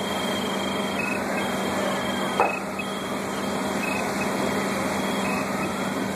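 Steady drone of fire trucks' engines running, with a constant low hum and a single sharp knock about two and a half seconds in.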